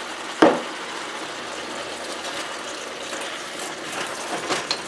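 Vegetables sizzling steadily in a hot wok just after soy sauce has gone in. A single sharp knock about half a second in, and a wooden spoon clattering and scraping in the wok near the end.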